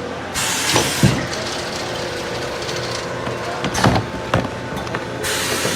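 Vacuum skin packaging machine running with a steady hum, two bursts of air hissing and a few sharp mechanical clunks.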